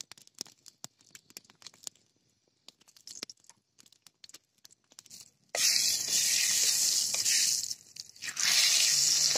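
Hot oil in a kadai frying dried red chillies: sparse light crackling at first, then about five and a half seconds in a loud steady sizzle starts as more ingredients are added. The sizzle drops off briefly and comes back louder near the end.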